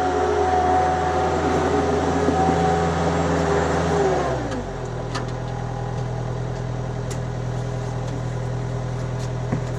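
Thomas 153 skid steer's engine running at working revs, then throttled back to a lower steady idle about four seconds in.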